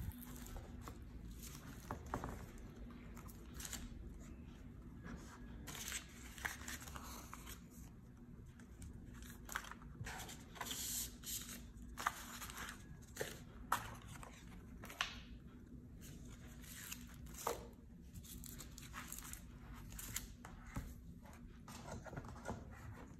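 Paper, cardboard and plastic packaging of a glass screen protector being handled: rustling and crinkling with scattered light taps, and a longer crinkle about halfway through as the paper sheets and wipe sachets are sorted.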